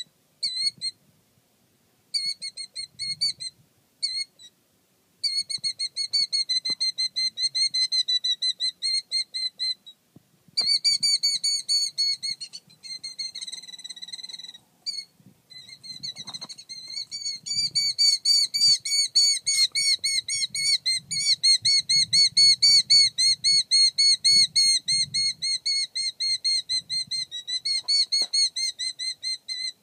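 Killdeer calling in long bouts of rapid, repeated high-pitched notes, broken by a few short pauses, with the longest and loudest run in the second half. These are the agitated calls of a parent bird protecting its nest.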